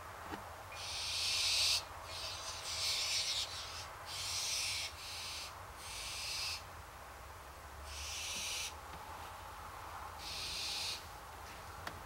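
Barn owls giving a series of about seven rasping hisses, each lasting up to about a second, with short gaps between them: the food-begging hiss of hungry barn owls.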